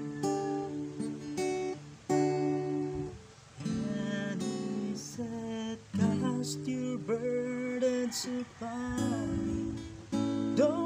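Acoustic guitar played by hand, chords plucked and strummed, with a man's singing voice over it from about halfway through.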